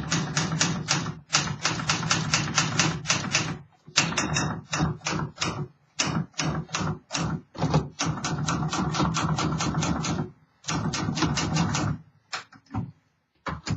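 1950 Remington portable manual typewriter being typed on: rapid runs of sharp key and typebar strikes, several a second, broken by short pauses. The machine is freshly refurbished and typing freely.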